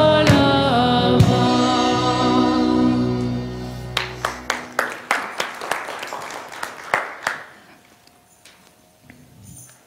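A church worship band of electric guitars, drums and keyboard ends a song. The singer's last note stops about a second in, and the band's final chord rings on and fades out over the next few seconds. A run of sharp, irregular taps follows and dies away.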